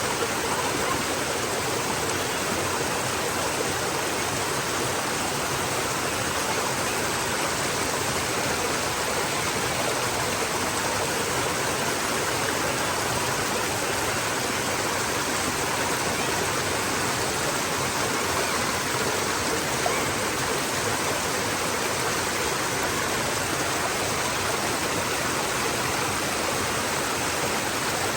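Running water flowing with a steady, even rush that does not change.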